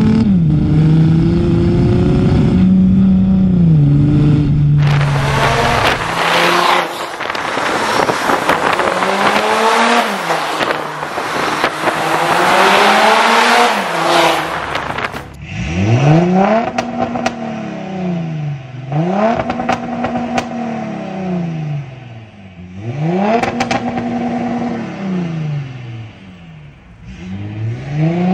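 Stage 2 Audi A6 3.0 TDI V6 diesel exhaust through a custom downpipe and megaphone-muffler system. It starts with a steady note that steps down in pitch, then revs up hard under a loud rushing hiss, then is revved up and down about four times with some crackles.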